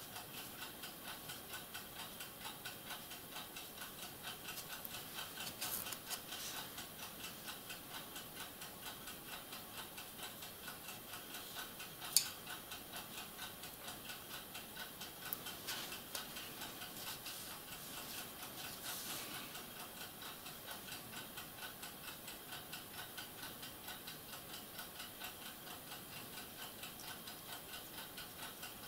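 Quiet, steady ticking about three times a second, like a clock in the room, with one sharp click about twelve seconds in and a few faint soft scrapes of a paintbrush working small plastic model parts.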